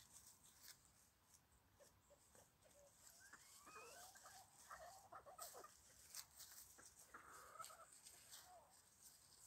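Bantam chickens clucking faintly, a cluster of short calls a few seconds in and another near the end, over light clicking and rustling as they scratch and peck in dry leaves.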